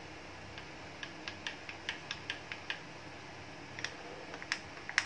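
Metal spoon clinking against a glass tumbler while stirring chopped nuts into thick chocolate syrup: a quick run of light clinks about a second in, a short pause, then more clinks near the end.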